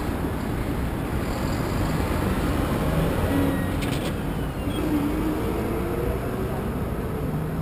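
Street traffic at a busy intersection: motor vehicles passing with a steady rumble of engines and tyres.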